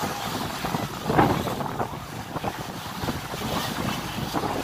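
Wind buffeting the microphone over the rush of water along a moving ferry's hull, with a louder gust about a second in.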